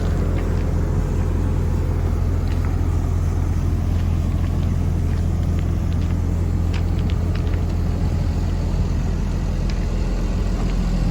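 Komatsu D51EX-22 bulldozer's diesel engine idling steadily, a constant low hum.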